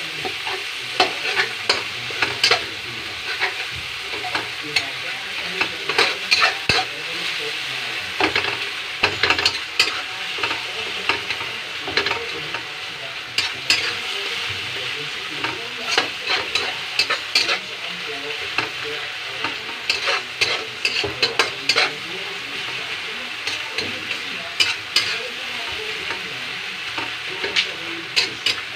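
Chopped tomatoes and onions sizzling steadily in oil in a metal wok. A metal spatula scrapes and taps against the pan at irregular moments as the tomatoes are stirred and pressed to crush them.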